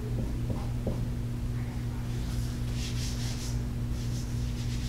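Dry-erase marker writing on a whiteboard: short scratchy strokes, clustered about two to three and a half seconds in, over a steady low electrical hum.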